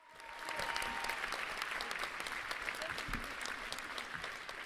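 Large concert audience applauding, a dense, steady clapping that fades in over the first half second.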